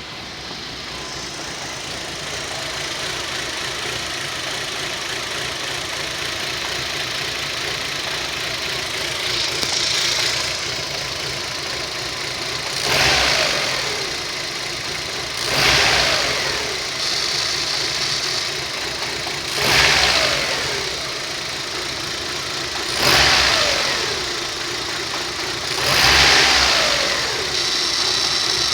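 Rover 25 1.4 engine running rough at idle. From about ten seconds in, the revs surge up and drop back six times, roughly every three seconds. The owner later traced this hunting idle to a faulty lambda (oxygen) sensor.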